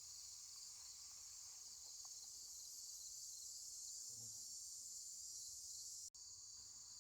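Faint, steady high-pitched chorus of crickets.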